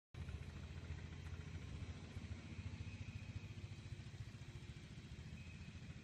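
Heavy truck diesel engine idling: a steady low rumble with a fast, even beat.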